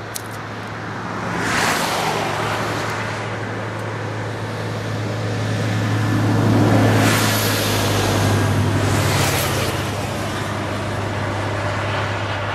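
Vehicles passing on the highway, swelling and fading three times (about two seconds in, around seven seconds and around nine seconds), over a steady low hum.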